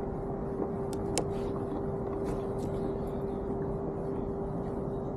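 Steady hum of a fishing kayak's trolling motor, one constant mid-pitched tone over low rushing water noise as the kayak moves at trolling speed, with a few light clicks about one and two and a half seconds in.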